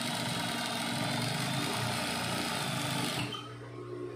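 Sewing machine stitching a seam at speed with a steady, rapid chatter. It stops abruptly about three seconds in.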